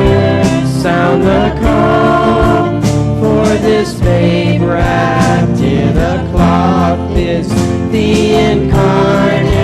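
A group of voices singing a Christian worship song, with instrumental accompaniment and sustained low notes under the singing.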